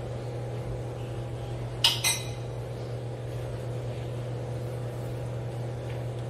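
A stirring utensil clinks twice against the stainless steel pan about two seconds in while a chunky cream sauce is stirred, over a steady low hum.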